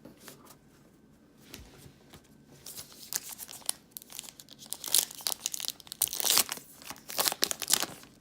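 Foil wrapper of a trading card pack being torn open and crinkled by hand: a few faint clicks at first, then loud, uneven crackling from about three seconds in until near the end.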